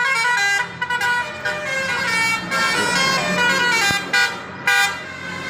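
Basuri multi-tone "telolet" air horn playing a tune, several horn tones sounding together and changing pitch every fraction of a second. The horn drops away briefly near the end, then gives a short loud blast.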